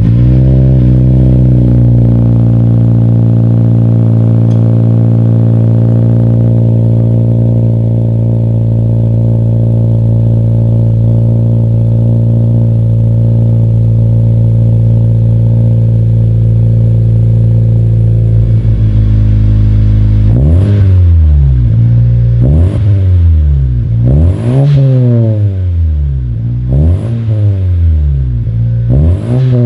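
Honda Civic Si's 1.5-litre turbocharged four-cylinder, exhaling through a freshly fitted Magnaflow cat-back exhaust and an off-road downpipe, just after a cold start. It settles within the first couple of seconds into a steady high cold idle, then about two-thirds of the way in it is revved in five short blips about two seconds apart.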